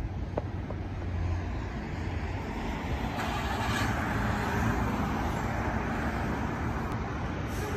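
An SUV drives past on the street, its tyre and engine noise swelling about three seconds in and then fading, over a steady low rumble.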